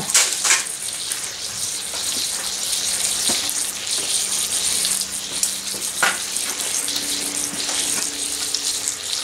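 Thick-cut bacon sizzling in a cast iron skillet on a wood stove: a steady frying hiss with a few sharp crackles of spitting fat.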